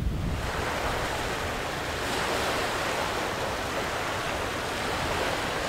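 Small sea waves washing steadily over a rocky, seaweed-covered shore.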